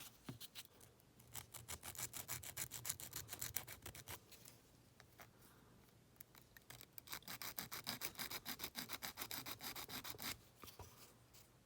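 Coarse-grit sanding stick rubbed back and forth over a plastic model part, sanding down a glued seam line. It goes in two runs of quick, even strokes, about five a second, with a short pause between.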